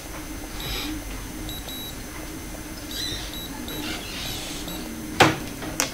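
Two sharp metallic clicks about half a second apart near the end, as the multimeter's metal probe tips knock against the temperature switch and its clamp. Under them a faint steady hum and faint high chirps.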